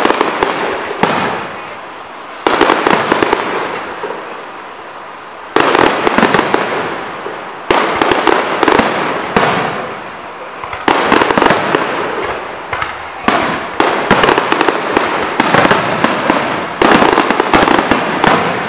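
Aerial fireworks display: shells bursting about every one to three seconds, each burst followed by a dense run of crackling that dies away.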